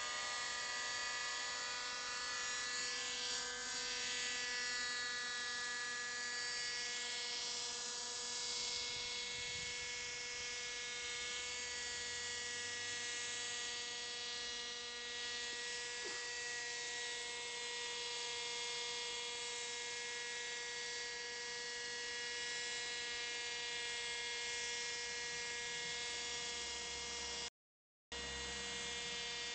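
Raptor 30 RC helicopter hovering and flying low: its small .30-class nitro glow engine and spinning rotors make a steady, high, many-toned whine at an even pitch. The sound cuts out completely for about half a second near the end.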